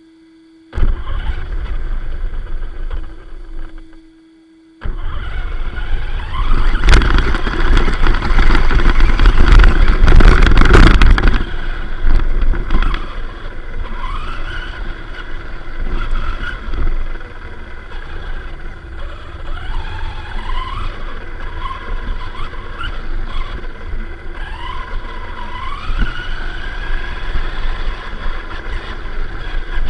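Arrma Vorteks Boost 4x2 RC truck's electric motor whining as it drives over rough ground, its pitch rising several times as it accelerates, over a rattling rush of tyre and chassis noise. It drops out briefly near the start, then runs loud from about five seconds in.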